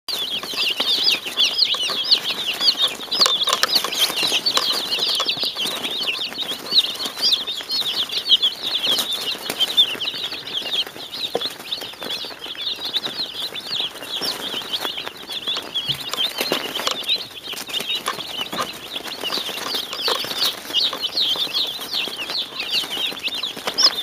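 A large brood of Cornish Cross broiler chicks peeping all at once: a dense, continuous chorus of short, high cheeps.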